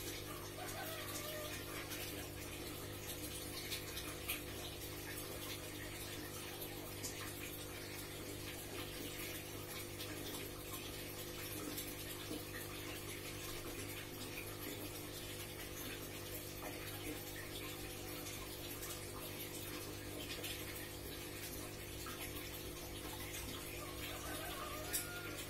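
Aquarium water churning and bubbling from heavy aeration, over the steady hum of the tank's pump. The aeration is there to help a newly shipped arowana recover.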